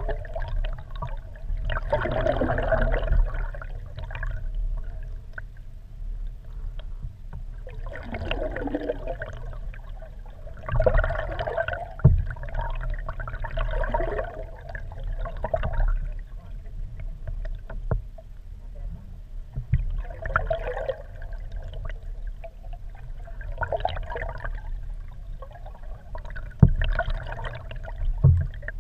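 Muffled water sloshing and gurgling around a GoPro's waterproof housing mounted under a moving kayak, over a steady low rumble, swelling every few seconds. A few sharp knocks come in, about midway and twice near the end.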